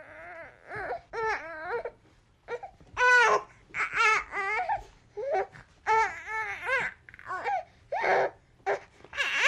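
An angry baby crying and fussing: a run of short, high-pitched wails and squeals, one after another with brief catches of breath between them.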